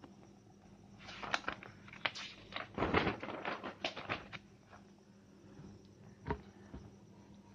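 Paper rustling and short knocks as a spiral-bound notebook is moved and its page turned to a blank one, with pens shifted about on it, then a single sharp click later on.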